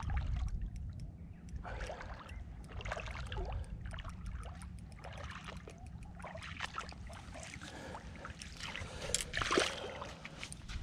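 Splashing and sloshing in ankle-deep water as a hooked dusky flathead is drawn onto a sand flat and the angler wades up to it, with a louder splash about nine and a half seconds in. A low wind rumble runs beneath.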